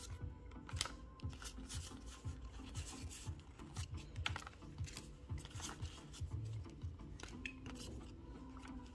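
Pokémon trading cards being handled: cards slid off a hand-held stack, flicked and set down, making irregular light clicks and scratches, over quiet background music.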